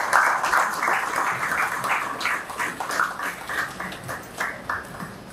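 Audience applauding. The clapping is dense at first, then thins out into scattered claps and fades away toward the end.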